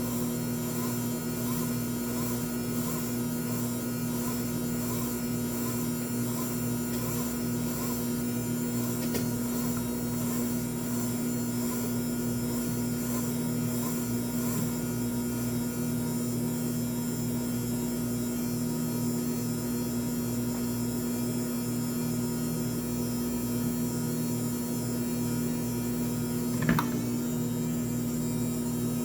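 Mini washing machine's electric motor running with a steady hum, with a faint regular pulsing through about the first half. A single short click sounds near the end.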